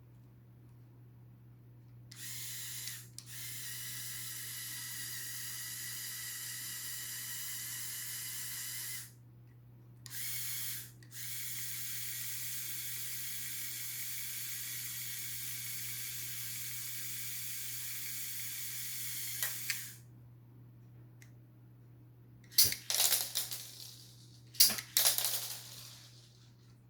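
Small electric motor of a LEGO truck model whirring in long runs, stopping for a moment about 9 s and 11 s in and cutting off about 20 s in. Near the end comes a quick series of sharp plastic clicks and rattles.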